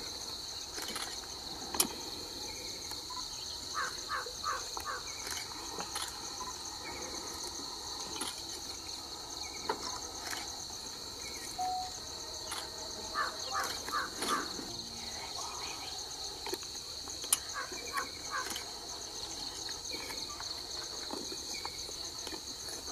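Steady, high, pulsing insect chorus, with a few sharp clicks and short bursts of chirping.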